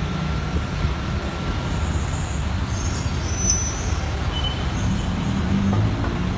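Steady low rumble of a vehicle driving slowly: engine and road noise from the car carrying the camera, with traffic close by.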